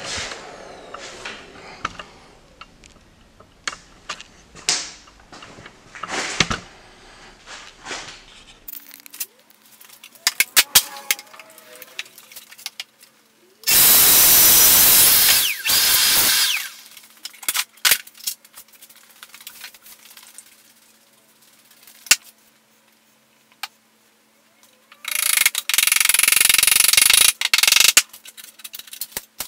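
Festool Domino joiner cutting mortises, twice: each cut is a loud burst of motor noise lasting two to three seconds that winds down as the motor stops. Clicks and knocks of the machine and timber being handled come in between.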